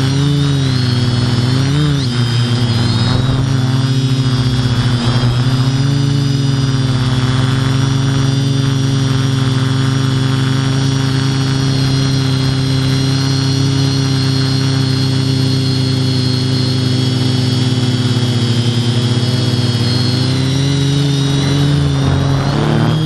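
Quadcopter's electric motors and propellers running steadily, heard from the camera mounted on the drone: a loud low hum with a high whine over it, its pitch wavering briefly about two seconds in and again near five seconds.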